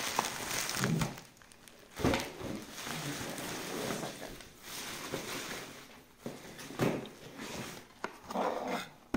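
Plastic packaging rustling and crinkling while items are pulled out, with cardboard boxes knocking a couple of times.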